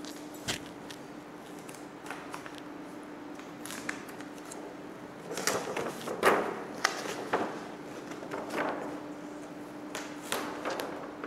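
A large sheet of paper rustling and crackling as it is handled and pressed against a whiteboard, with a few light knocks, in one spell about five seconds in and another near the end. A faint steady hum runs underneath.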